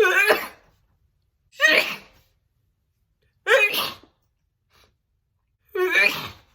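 A woman sneezing four times in a row, about every two seconds: a sneezing fit.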